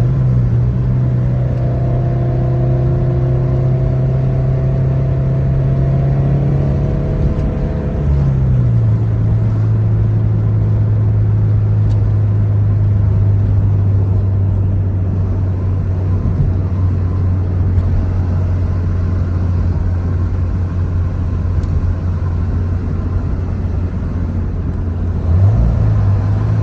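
Subaru BRZ's flat-four engine and Kakimoto aftermarket exhaust, heard from inside the cabin while driving: a steady drone that drops in pitch about eight seconds in and then holds, with a short rise in pitch near the end.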